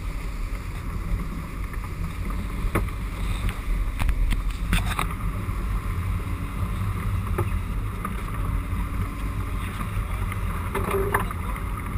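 Sportfishing boat's engine running with a steady low rumble and water rushing past the hull, broken by a few short, sharp knocks and clicks.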